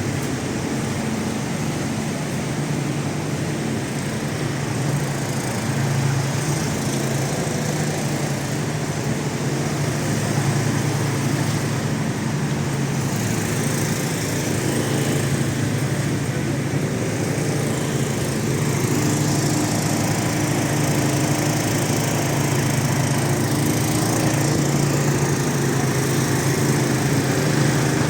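Portable generators running with a steady engine drone and hum, standing in for mains power during a blackout.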